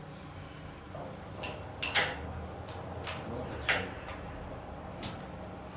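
Sharp clacks of a carrom striker hitting the carrom men on the board, about five in all, the loudest a quick pair about two seconds in and another just before four seconds. A steady low hum of an exhaust fan runs underneath.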